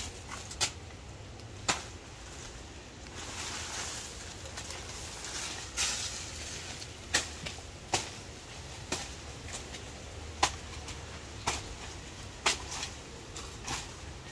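Machete blows chopping into a banana plant's stalk: about ten sharp strikes at uneven intervals, with leaves rustling in between.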